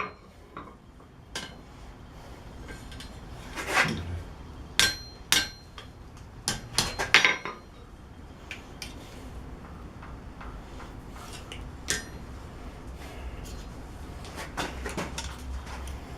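Blacksmith's hammer striking forged steel on an anvil, irregular blows with a metallic ring, straightening a hand-forged leaf tea light holder. A cluster of harder strikes falls in the middle, followed by scattered lighter taps.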